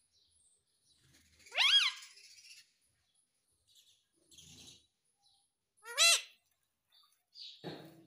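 Indian ringneck parakeet giving two short, shrill calls, each sweeping up in pitch, about one and a half seconds in and again about six seconds in.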